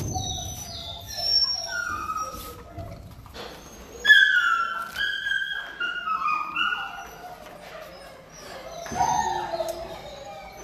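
Dogs in shelter kennels whining and howling: a string of high-pitched, falling whines, loudest about four seconds in.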